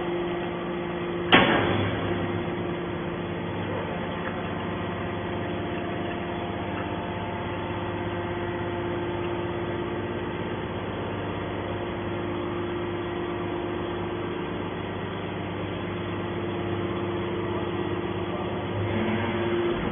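Hydraulic scrap metal baler running with a steady machine hum, and a single loud metal clank about a second in.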